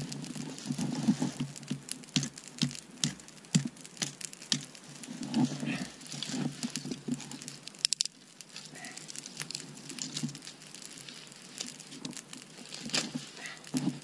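A knife whittling small wooden sticks, with irregular scraping and clicking, over a campfire's crackle.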